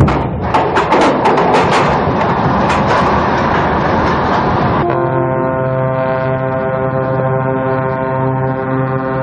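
A ship's hull and launch cradle sliding down the launch ways, with a loud rough scraping noise and a run of knocks and cracks in the first two seconds. About five seconds in this gives way to a long, steady ship's horn blast.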